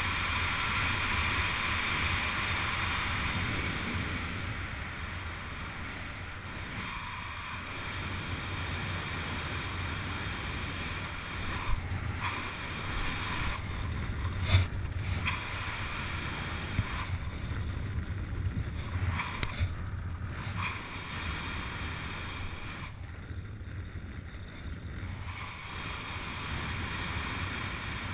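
Steady wind rushing over a helmet-mounted camera microphone during parachute canopy flight, a low buffeting rumble. A handful of brief knocks and rustles come in the middle, heaviest about halfway through.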